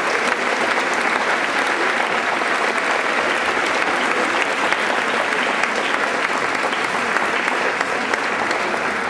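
Audience applauding steadily: many people clapping at once.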